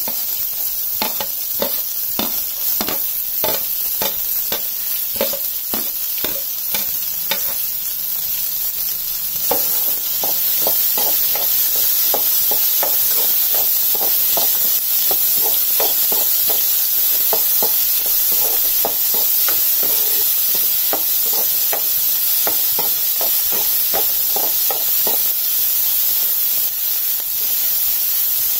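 Chopped onions sizzling in hot oil with mustard seeds and chillies, while a metal spatula scrapes and stirs them around the pan in regular strokes, about two a second at first and quicker, about three a second, after about ten seconds. The stirring stops near the end, leaving the steady sizzle.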